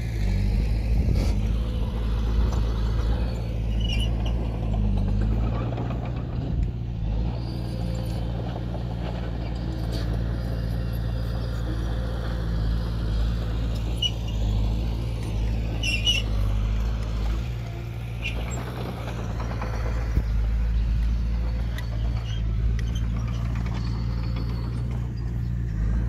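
Heavy diesel engine of earthmoving machinery running steadily with a low drone, its load rising and falling a little.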